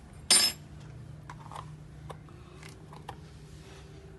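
A metal teaspoon clinks once, loud and short, then a few faint light clicks follow.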